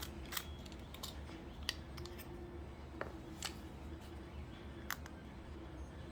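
Scattered light clicks and taps of small parts being handled on a pistol grip module with its grip panels, about eight sharp ticks at irregular intervals over a faint steady hum.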